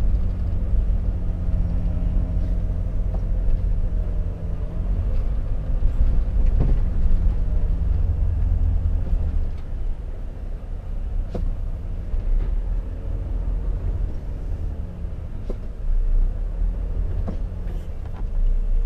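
Volvo FH truck engine heard from inside the cab while driving slowly, a steady low rumble whose tone drops about four seconds in. A few faint clicks and knocks come through here and there.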